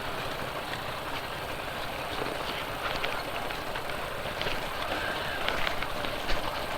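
Motorcycle being ridden over a rough road, the engine and road rumble steady under wind noise, with scattered rattling clicks from about halfway through.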